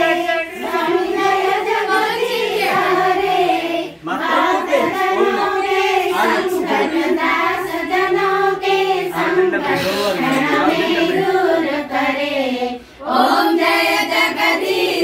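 Several voices singing together in long phrases, pausing briefly about four seconds in and again near the end.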